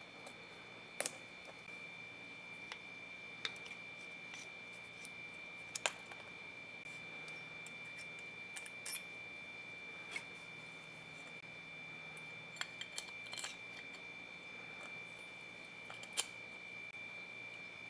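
Light clicks and taps of small metal parts of an electric drill motor being handled and fitted together: washer, armature shaft, fan and end housing. The clicks come singly and in small clusters, about a dozen in all, over a faint steady high-pitched tone.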